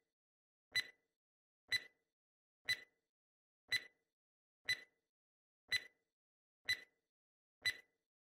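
Countdown timer sound effect ticking about once a second, eight short, sharp ticks with a brief high ring, counting down the seconds left to answer.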